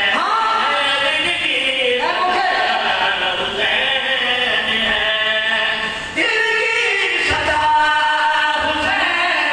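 A man's voice chanting a melodic sung recitation in long, sliding phrases. New phrases begin at the outset, about two seconds in and about six seconds in.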